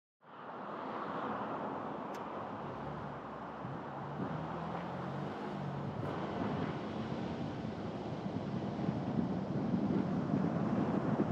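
Car driving along a road: steady rushing road and wind noise with a faint engine hum, growing slowly louder.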